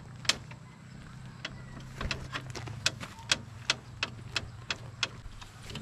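A series of sharp clicks, about two to three a second, over a low steady hum.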